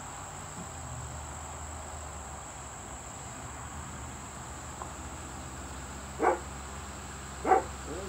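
A dog barks twice near the end, short sharp barks, over a steady high drone of insects and the low hum of a pickup truck pulling up the driveway.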